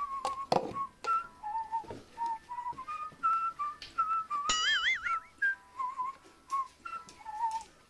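Background music: a whistled tune of short stepping notes, with a wobbling, warbling sound effect about four and a half seconds in, over scattered short clicks and taps.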